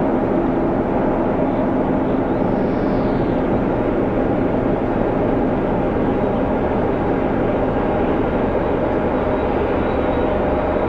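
Diesel engines of two DR class 120 (Soviet M62) locomotives, 14D40 two-stroke V12s, running steadily under load as they haul a freight train up a grade.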